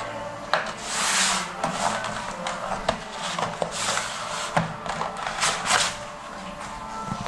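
Cardboard packaging handled: an inner box rubbing and scraping as it slides out of its outer sleeve, with several swishes and a few light taps and knocks of cardboard.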